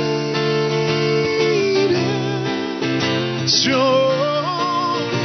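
A man singing a slow love song to acoustic guitar accompaniment. It opens on a long steady note, then a wavering sung phrase comes in about three and a half seconds in.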